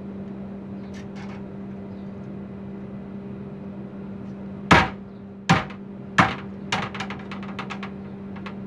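A 14-pound sledgehammer on a hinged swing rig, let go from 400 mm back, hits a sheet of aluminium caravan cladding hard about halfway through, denting it badly. It bounces and strikes the sheet three more times, each hit weaker, followed by a few light taps. A steady low hum runs underneath.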